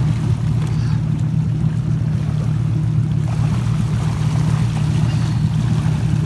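Motorboat engine running steadily, a low even hum that does not change in pitch.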